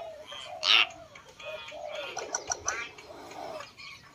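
Hill myna calling: a loud call about a second in, then a run of sharp clicks and short whistled calls. Fainter low calls sound in between.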